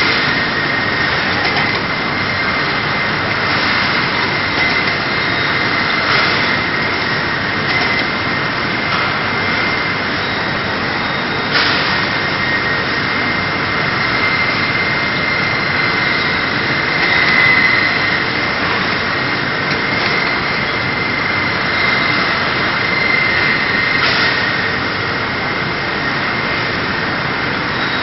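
Automatic box packing line with roller conveyors running: a steady machine hum with a constant high whine, broken by a few short clacks.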